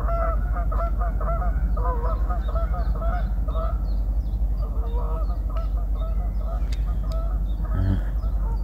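A flock of geese honking, many short calls overlapping without a break.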